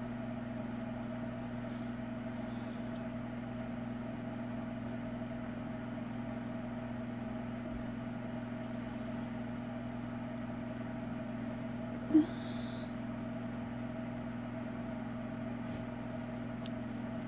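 A steady low hum made of a few held tones, like a fan or appliance motor running in the room. One brief short sound cuts in about twelve seconds in.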